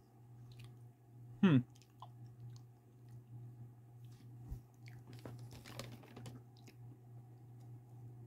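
A person chewing a mouthful of donut, with soft small clicks and smacks, over a steady low hum. About a second and a half in comes one short, loud sound that falls in pitch.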